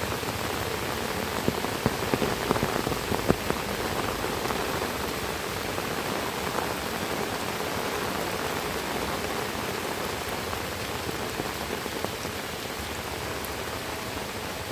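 Heavy rain falling steadily, with a cluster of louder, sharper drop hits about two to three seconds in.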